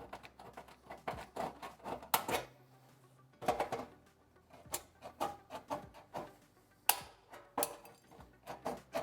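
Hand snips cutting into the steel of a gutter from a drilled relief hole: a run of irregular sharp metallic clicks and crunches with short pauses between cuts.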